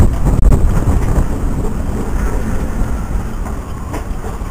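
Strong wind buffeting the microphone, a loud low rumble that eases off gradually.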